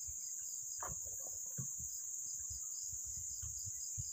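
Steady, high-pitched chorus of insects, with a softer pulsing call just beneath it, over faint low knocks and rumbles.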